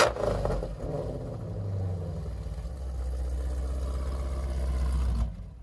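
Supercharged 6.2-litre V8 of a 1000 whp Jeep Grand Cherokee Trackhawk on a cold start, heard from its exhaust. It opens with the tail of a loud rev, settles to a steady low idle, and cuts off about five seconds in.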